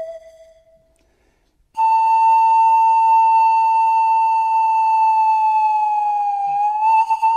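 Background music: a breathy flute melody. One note fades out to a brief silence about a second in, then a single long, steady note comes in just under two seconds in and is held until near the end, where the melody moves on.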